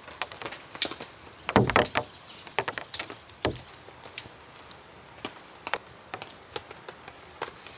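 Irregular clicks and knocks of a Nemo Kunai backpacking tent's poles and clips being handled as it is pitched, loudest in a cluster about one and a half to two seconds in, with a lower knock a little later, over a faint steady hiss of rain.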